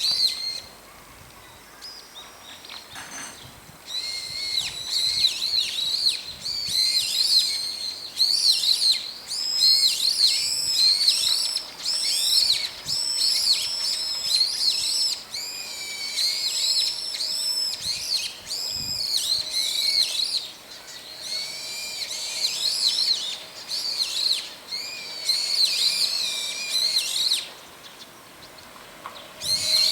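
Brown-eared bulbuls calling: a long run of repeated high, hooked calls that starts about four seconds in and stops a couple of seconds before the end.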